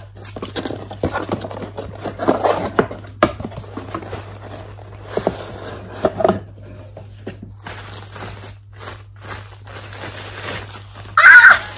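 Cardboard camera box and its packaging being handled: flaps scraping and tapping, then white wrapping rustling and crinkling as it is pulled off the camera. There are scattered clicks and rustles, and one short, louder burst near the end.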